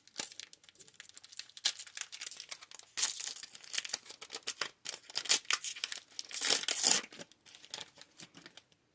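A Digimon Card Game booster pack's wrapper being torn open and crinkled, a dense crackling that is loudest in the middle stretch and dies away near the end.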